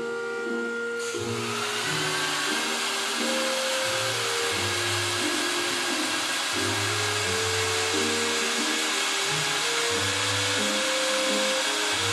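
A vacuum extraction motor switches on about a second in, a short rising whine that settles into a steady rush of suction, drawing the flooded cleaning solution down through a soaked wool rug.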